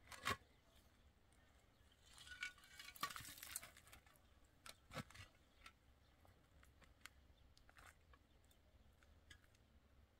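Concrete blocks being handled and set on a block wall: a sharp knock right at the start, a stretch of scraping about two to three and a half seconds in, another knock about five seconds in, then a few faint taps.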